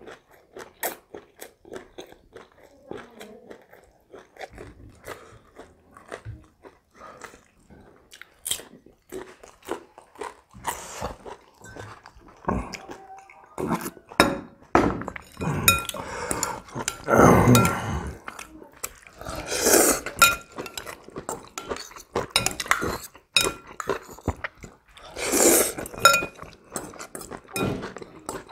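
Close-up chewing and crunching of pan-fried chicken, with wet mouth sounds. About halfway through come louder sips and gulps as beetroot juice is drunk from a glass mug, then more chewing and a few light clinks of utensils in the bowl.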